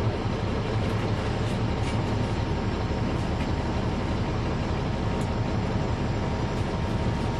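NABI 416.15 transit bus with a Caterpillar C13 ACERT diesel engine running steadily, heard on board as an even low rumble with a faint steady high tone.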